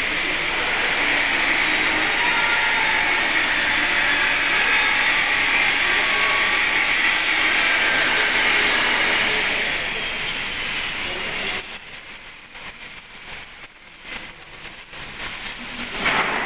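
Loud, steady hissing noise that drops away sharply after about eleven seconds, leaving a fainter, uneven noise, with a brief swell near the end.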